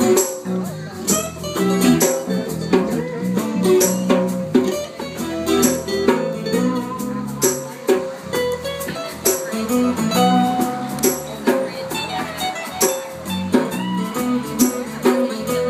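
Several acoustic guitars strumming a steady rhythm in an instrumental passage of a song, with no singing.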